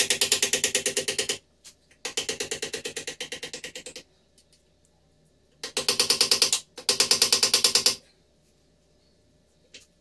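Pneumatic wrench run in four short bursts of rapid, even rattling, undoing bolts on a backhoe loader's gearbox casing during its teardown.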